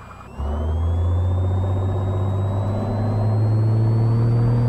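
Cessna 182's six-cylinder piston engine brought up to full takeoff power about half a second in, then running loud and steady, with a faint whine that climbs slowly as the plane accelerates down the runway.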